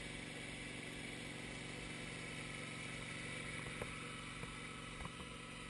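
Wood-Mizer LT15 bandsaw mill's gasoline engine idling steadily, with a few faint ticks in the second half.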